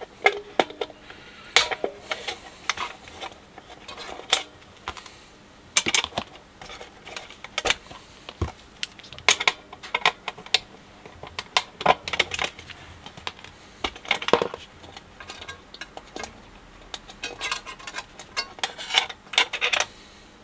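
Irregular small metallic clicks and clinks of pliers on the steel levers and linkages of a BSR UA15SS record changer as they are unclipped and lifted off the underside of the deck, sometimes several clicks a second.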